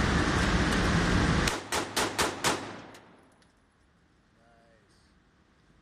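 A pistol fired rapidly, about five shots in quick succession over about a second, each crack ringing in an indoor range. A loud steady rushing noise comes before the shots and stops abruptly as they begin.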